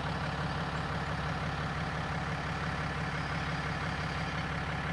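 A vehicle engine idling steadily: an even, low hum that does not change.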